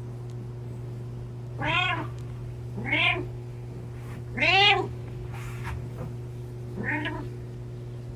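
A domestic cat meowing four times, each call rising and falling in pitch, the third the loudest and longest, over a steady low hum.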